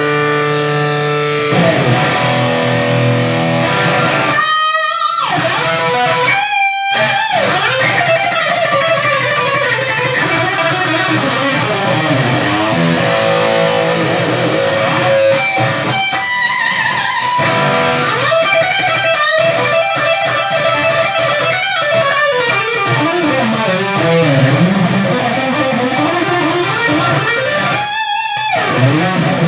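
Ibanez RG560 electric guitar played solo. It opens with a held chord, then goes into fast lead runs with sliding and bending notes, broken by a few short pauses.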